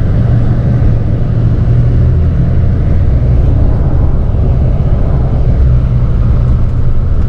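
Steady low rumble of an intercity coach bus's engine and running gear, heard from inside the passenger cabin as the bus drives along.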